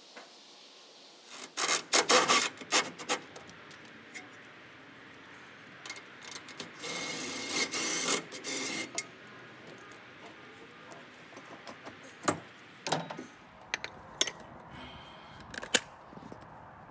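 Cordless impact wrench running in short bursts, then a longer run, as bolts on a Honda Civic's front strut assembly are spun out. It is followed by sharp metallic knocks and clanks as the suspension parts are handled.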